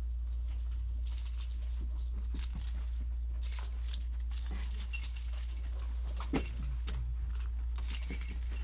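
Irregular bursts of light metallic jingling and clicking over a steady low hum.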